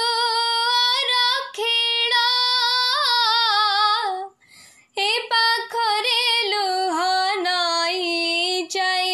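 A woman singing an old Odia song unaccompanied, holding long notes with a wavering vibrato. She breaks off for a breath a little past four seconds in, then carries on with another long sustained phrase.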